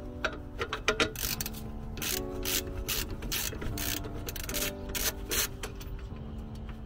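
Background music with held chords, over a run of short rubbing and scraping sounds from gloved hands working on a rear brake caliper.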